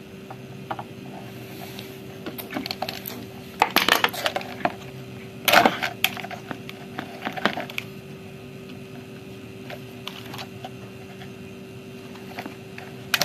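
Scattered plastic clicks and rattles of fingers working stiff wire connectors off a blender's speed-switch block, the loudest clusters about 4 and 5.5 seconds in. A faint steady hum runs underneath.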